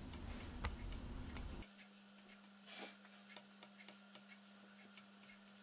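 Faint irregular clicks and ticks of a metal blade touching a ceramic serving plate as it is pressed into soft helva to score a decorative pattern. A low background rumble drops away about a second and a half in.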